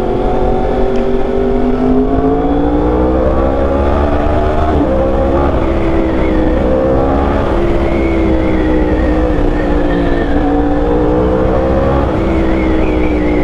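2021 Yamaha R1's crossplane inline-four running through a loud aftermarket exhaust, under way at speed. The engine note climbs in pitch, drops suddenly about five seconds in at a gear change, then rises and falls again as the throttle is opened and eased off, over a steady rush of wind noise.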